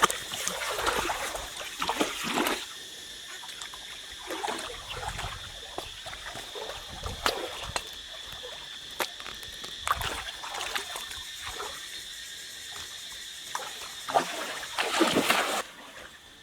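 Water splashing and trickling in irregular bursts as someone wades and works in a shallow river, the longest burst near the end, over a steady high-pitched chorus of background creatures.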